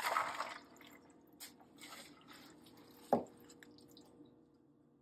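Chunks of flash-cooked meat splashing into a bowl of ice water and dripping, loudest right at the start with a few smaller splashes after. A sharp knock about three seconds in.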